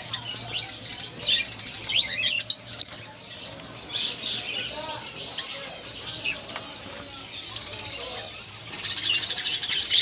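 Many caged budgerigars and lovebirds chattering and chirping together, in quick high chirps, with louder bursts about two seconds in and again near the end.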